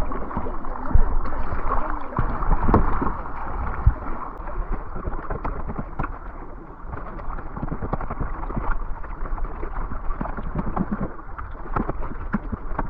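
Canoe paddling on a river: water splashing and lapping against paddles and hull in many small splashes, over a low rumble of wind on the microphone.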